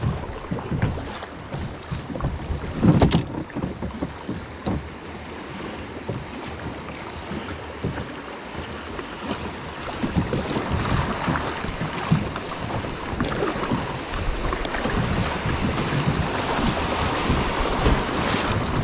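A fishing kayak running a shallow creek riffle: rushing, rippling water along the hull and water slapping and splashing at the bow. There is a heavier thump about three seconds in, and the water noise gets louder from about halfway through.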